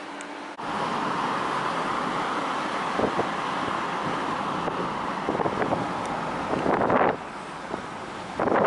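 Road and wind noise of a moving car heard from inside, an even rushing sound of tyres and air that starts suddenly about half a second in and swells louder a few times, most of all near the end.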